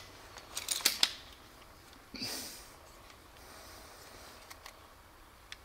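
Mechanical handling clicks from a slingshot crossbow being readied for the next shot: a cluster of sharp clicks about a second in, a short hissing rush around two seconds, and a few faint ticks near the end.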